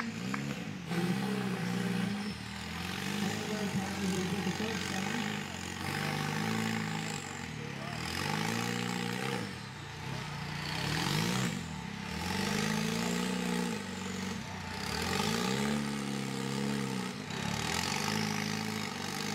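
Rock-crawler buggy engine revving up and down again and again under load as it climbs a steep boulder, each swell rising and falling in pitch over a second or two.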